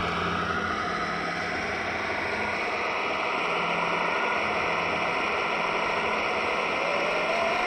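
Radio-controlled scale model truck driving, its drivetrain giving a steady hiss and hum with a faint whine that slowly rises and falls in pitch.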